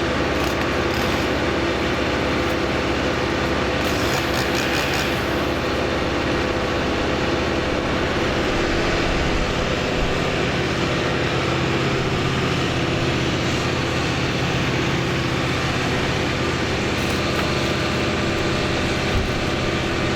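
An engine running steadily at a constant pitch, a continuous drone with no revving.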